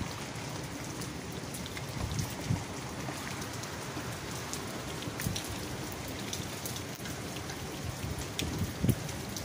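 Steady rain falling, with scattered sharp drips ticking close by.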